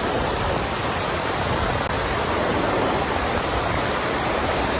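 Steady rush of ocean surf at the shoreline, an even wash of water noise without breaks.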